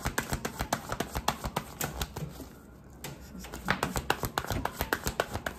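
A tarot deck being shuffled by hand: a rapid patter of cards slapping together, several a second, with a lull of about a second near the middle.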